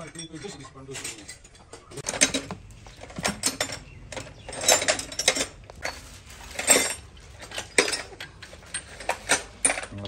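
Metal tools and engine parts being handled, clinking and clattering in irregular sharp knocks, a few of them louder and briefly ringing.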